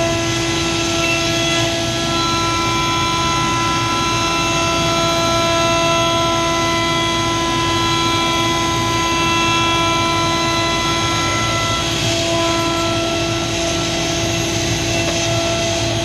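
CNC router spindle milling aluminium with a carbide end mill on an adaptive-clearing toolpath: a steady, loud whine of several held tones over cutting noise, its higher tones shifting about twelve seconds in as the cut changes.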